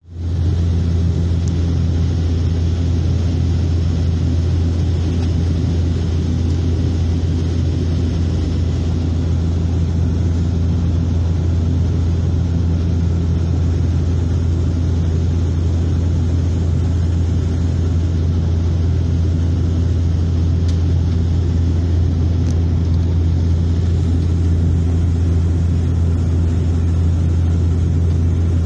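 Cabin noise of a turboprop airliner descending to land: a steady low propeller drone with engine and airflow noise.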